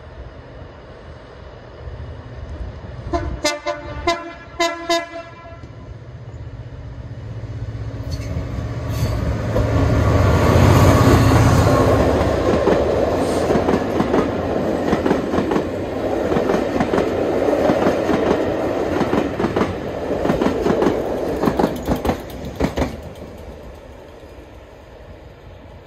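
Two Class 67 diesel locomotives, one at each end of a rake of coaches, pass at speed: several short horn toots about three to five seconds in, then the lead locomotive's engine grows loud and goes by. The coach wheels follow with a steady clickety-clack over the rail joints, which dies away as the rear locomotive draws off.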